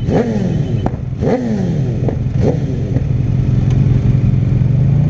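Rewaco trike's engine blipped three times, the pitch jumping up and falling back each time, then settling into a steady idle.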